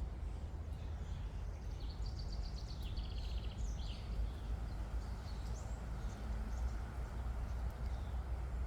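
Songbirds calling outdoors: a rapid trill of quick repeated high notes about two seconds in, a few sliding whistles just after, and scattered short chirps later. Under them runs a steady low rumble, the loudest part of the sound.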